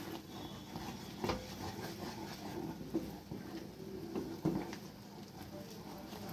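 Wooden spatula stirring thick, bubbling gram-flour and sugar-syrup batter in a pan: soft scraping and sloshing, with a few light knocks against the pan.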